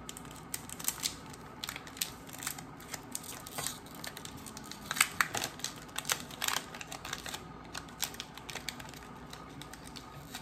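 Foil wrapper of a Pokémon TCG Evolutions booster pack crinkling in the fingers as it is worked open, in irregular sharp crackles.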